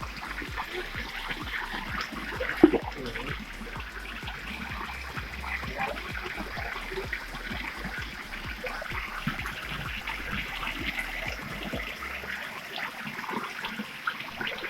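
Flowing stream water, a steady splashing trickle over rocks, with one sharp knock about two and a half seconds in.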